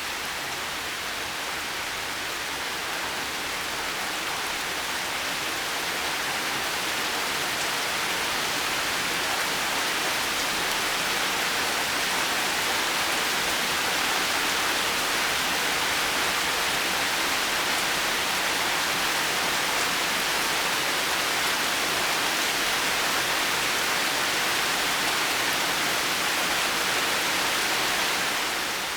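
Steady heavy rain, a dense even hiss with no thunder, growing a little louder a few seconds in and easing off near the end.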